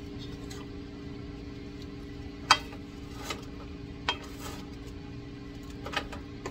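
Wooden spatula stirring fried rice in a large nonstick wok, knocking against the pan a few times with sharp clicks, the loudest about two and a half seconds in, over a steady low hum.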